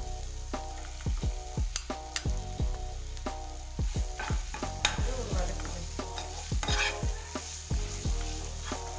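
Perforated metal skimmer stirring and scraping jackfruit pulp and fried onions around a nonstick kadai, with the food sizzling in hot oil. There are scrapes against the pan throughout, the loudest about five and seven seconds in.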